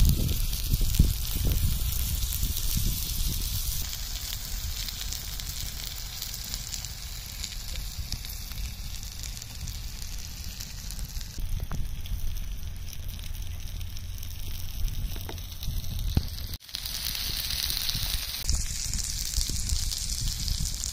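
Marinated chicken pieces sizzling and crackling on a hot stone slab, a steady hiss full of small pops, with a low rumble underneath.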